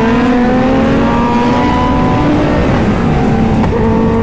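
Suzuki Hayabusa's inline-four engine pulling hard under throttle, its pitch climbing steadily for about two seconds, dipping briefly, then holding steady, over heavy wind rush.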